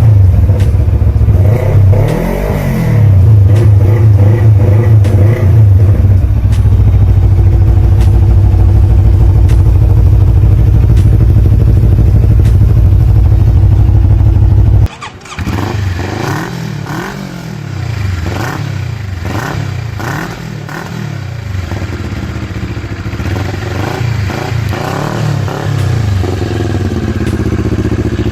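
CFMOTO NK400/GT400 400 cc parallel-twin fitted with an aftermarket muffler: it is revved a couple of times, then held at a steady high rev. About halfway through it cuts to a quieter recording of quick repeated throttle blips, about one a second, which settle back to idle near the end.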